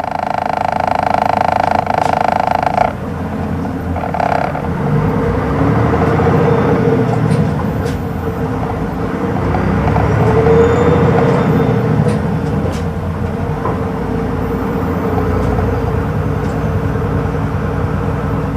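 Hino Rainbow II city bus under way, heard from inside the cabin: its inline-six diesel engine running with continuous road and tyre noise, swelling a little about ten seconds in. A steady pitched tone over the first three seconds stops abruptly.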